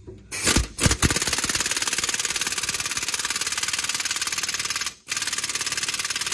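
Impact wrench hammering on a stuck exhaust bolt in fast, even blows. After a couple of short blips it runs continuously, stops briefly about five seconds in, then starts again.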